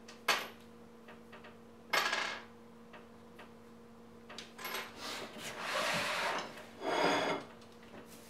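Kitchen things being moved about on a wooden tabletop. There are a few sharp knocks in the first couple of seconds, then scraping and rubbing as a cutting board and a plate are slid across the wood near the end.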